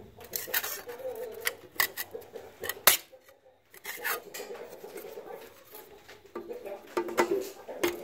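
Clicks and knocks of a clear plastic eye shield and its bracket being handled and fitted onto a bench grinder, with one sharp knock just before three seconds in.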